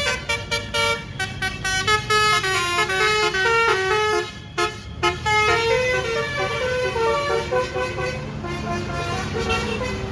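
Bus 'basuri' telolet musical horn playing a fast tune of stepped notes, with a brief gap a little after four seconds, over a low engine rumble.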